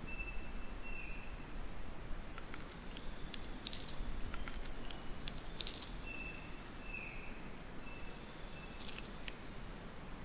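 Outdoor insect ambience: a steady high insect buzz, with a short whistled call heard twice and a few faint scattered clicks.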